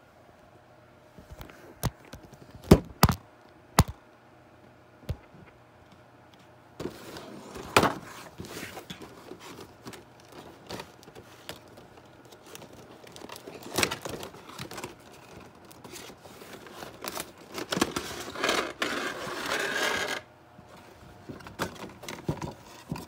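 Action-figure packaging being handled and opened: a few sharp clicks and knocks of the box early, then a long spell of rustling, scraping and crinkling of the clear plastic tray, busiest about three quarters of the way through.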